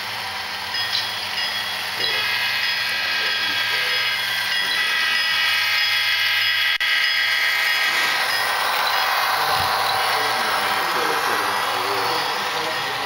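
HO scale model freight train running past close by. The Southern Pacific diesel locomotives give a whine of several steady tones that sets in about two seconds in and fades near eight seconds. Then the freight cars roll past with an even rushing noise of wheels on the track.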